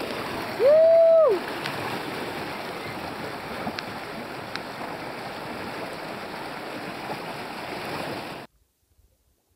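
Fast river water rushing and splashing around a canoe running choppy rapids, a steady hiss. About a second in, a loud held high note, under a second long, rises and falls over the water. The sound cuts off suddenly near the end.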